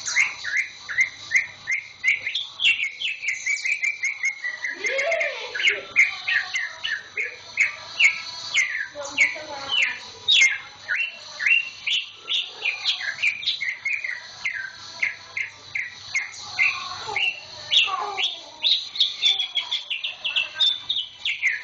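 Cucak ijo (greater green leafbird) singing a long, continuous song of rapid sharp chirps and short gliding notes, several each second, with little pause.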